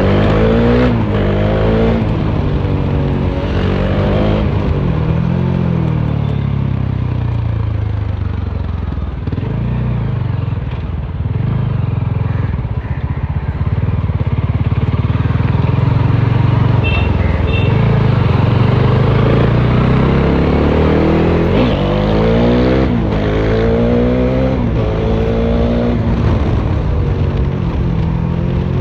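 Bajaj Dominar 400's single-cylinder engine, straight-through with the muffler removed, heard on board at highway speed. It revs up through several quick gear changes, settles into a steady cruise, then pulls hard up through the gears again near the end.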